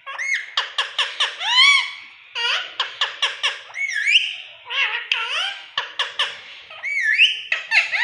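A parrot calling in rapid runs of short, high, rising-and-falling whistles and squawks, several a second, in bursts with brief pauses.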